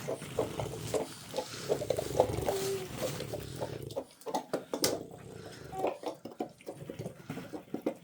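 Plastic ball-pit balls clattering in many quick, light knocks as a dog moves around among them.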